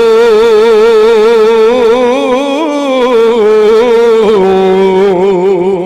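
A man's voice singing Punjabi Sufi verse, holding one long ornamented note that wavers and curls in pitch and steps down a little about four seconds in.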